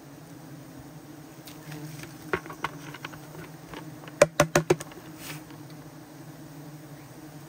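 Swarm of honey bees buzzing in a steady drone around their disturbed comb. It is broken by a few sharp clicks about two seconds in, then a quick run of five louder clicks a little past the middle.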